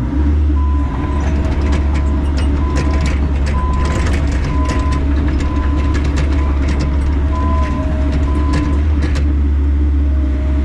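Bobcat E85 excavator's diesel engine running steadily while its tracks are spun to shed dirt, with scattered clanks from the tracks. A short beep repeats about once a second over the engine.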